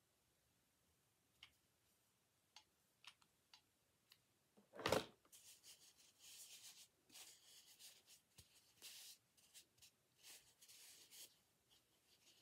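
Faint handling noises of a sock-covered styrofoam egg being glued by hand: a few light ticks, a single knock about five seconds in, then on-and-off soft rustling and rubbing.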